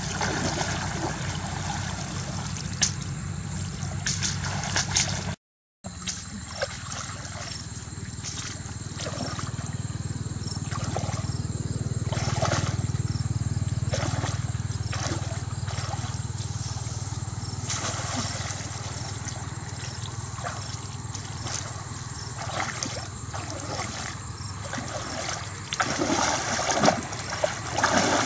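Water sloshing and splashing as a person wades through shallow muddy water and scoops with a woven bamboo fishing basket, with a brief cut to silence a little over five seconds in. The splashing grows louder near the end.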